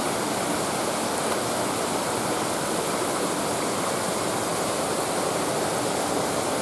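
Mountain waterfall: water falling and rushing over rocks in a steady, unbroken roar of noise.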